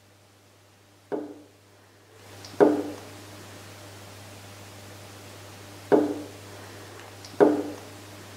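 Four sharp knocks at uneven intervals, each with a short hollow ring as it dies away. A steady hiss comes in about two seconds in.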